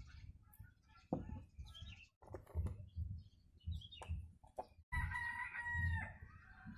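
A rooster crowing once, a held call of about a second starting about five seconds in. Before it, a few sharp knocks as the containers are handled.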